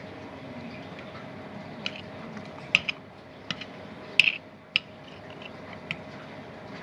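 A handful of short, sharp clinks and clicks from kitchen utensils and dishes being handled, scattered irregularly over a steady low hum.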